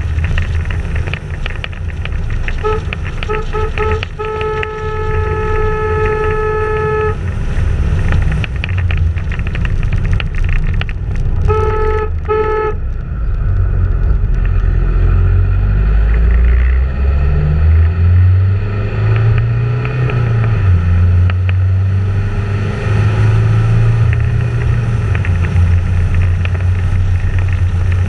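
Wind rumbling on a moving camera's microphone, with a vehicle horn sounding: a few quick toots about three seconds in, a held blast of about three seconds, then two short toots around twelve seconds in.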